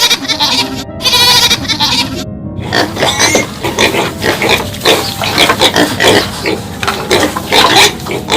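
A goat bleating in two long wavering calls, cut apart by sudden silence, then from about two and a half seconds in pigs grunting and squealing in a quick, irregular string.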